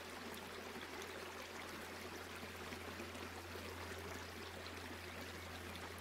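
Faint steady hiss with a low hum underneath: background room or recording noise.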